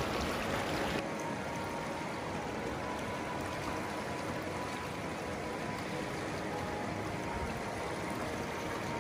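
Steady rush of a river running high.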